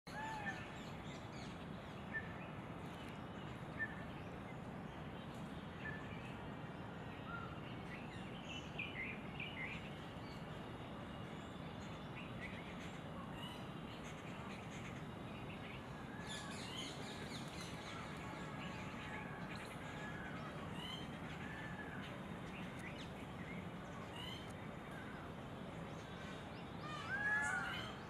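Woodland ambience: a steady background hiss with many short chirps and calls from small birds scattered throughout, with the loudest cluster of calls near the end.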